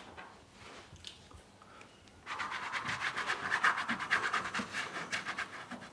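Fingers rubbing blue paint into a canvas with quick back-and-forth strokes, a fast dry rasping that starts about two seconds in.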